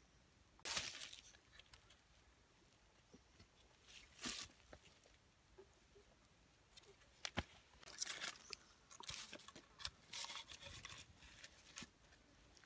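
Faint, scattered rustling and crunching of dry leaf litter and wood being handled, with one sharp knock a little past the middle.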